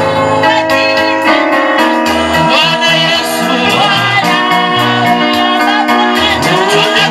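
Gospel praise-and-worship music: singing over a keyboard and a moving bass line, played loud and steady.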